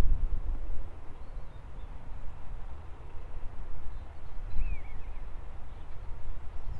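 Wind buffeting the microphone in uneven gusts, with one short bird chirp a little after halfway.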